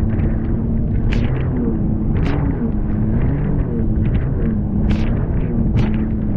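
Jet ski engine running at speed over choppy sea, its pitch wavering up and down as the craft rides the waves, under a steady rush of wind and water. Several sharp splashes cut through as the hull hits the chop and throws spray, about one, two, five and six seconds in.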